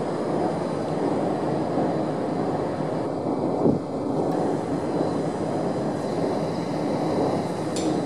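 JR Freight EF200 electric locomotive running light across a steel truss railway bridge, a steady distant rumble, with a brief thump about halfway through.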